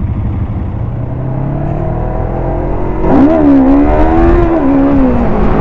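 Motorcycle engine under way, its note rising slowly, then about three seconds in it gets louder and accelerates, the pitch dipping and climbing again before it eases off toward the end.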